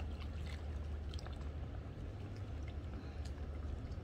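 Light splashing and lapping of pool water as swimmers move through it, over a steady low hum.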